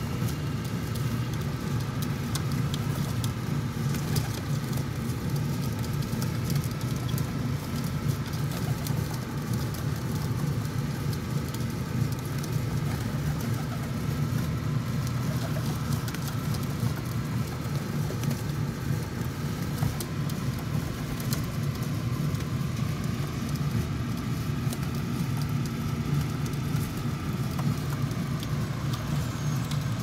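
Steady low mechanical drone of city background noise: an even rumble that holds level throughout, with a faint hum above it and a few faint ticks.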